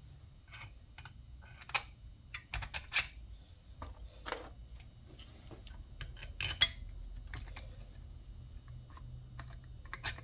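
Irregular light metal clicks and taps of bolts being handled and fitted into a two-cylinder air compressor, with a sharper click about six and a half seconds in.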